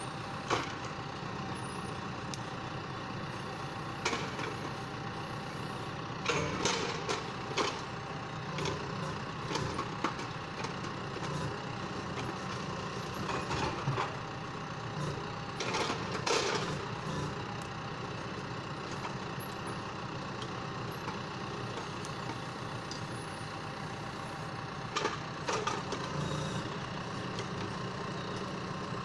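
John Deere 6115M tractor's diesel engine running steadily under load, powering the hydraulic crane of a forestry trailer, with a few steady tones over the engine hum. Short knocks and clunks of the grapple and logs come in clusters, the loudest around six to seven seconds in and again around sixteen seconds.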